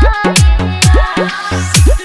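DJ remix of a Bhojpuri song: electronic dance beat with heavy bass kicks that drop sharply in pitch, in a fast steady rhythm, under synth lines.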